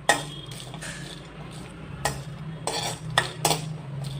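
Cardamom and ginger being stirred as they dry-roast in a kadhai: a sharp knock on the pan just at the start, then several short scrapes and clinks about two seconds in.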